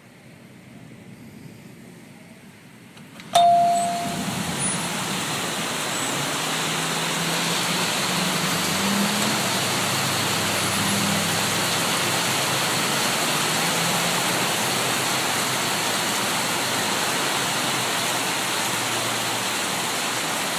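A sharp click with a brief bell-like ring about three seconds in. After it comes a loud, steady rushing of heavy rain and water, much louder than the quieter rain patter before it.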